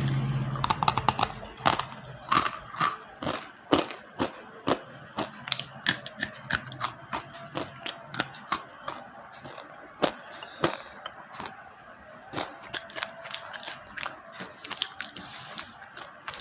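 Slate pencils being bitten and chewed close to the microphone: a quick run of sharp, dry crunches, two or three a second, growing quieter toward the end.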